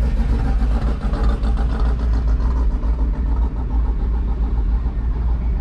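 Steady low rumble of a car's engine and road noise, heard from inside the moving car's cabin.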